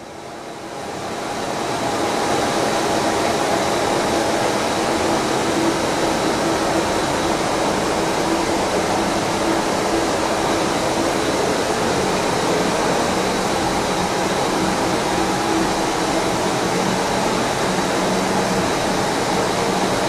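Ross double planetary mixer with a 5 HP single-speed motor running steadily: an even mechanical hiss and hum with a thin high whine. It comes up over the first couple of seconds, then holds level.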